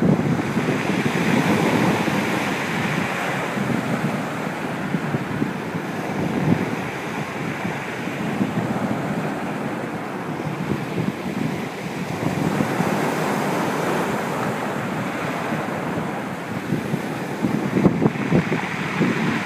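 Sea surf: waves breaking and washing up the beach and drawing back in a continuous rushing hiss that swells with each breaker, strongest at the start, about two-thirds through and near the end. Wind buffets the microphone throughout.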